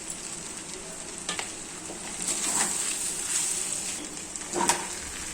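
Pasta sizzling in a frying pan as it is stirred with tomato sauce. A spatula scrapes and knocks against the pan a few times.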